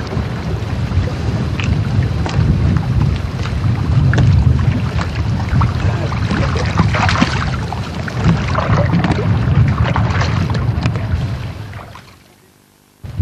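Wind buffeting the camcorder microphone, over the splashing and lapping of lake water around hands holding a carp at the surface for release. The splashes are busiest in the middle, and everything fades out about 12 seconds in.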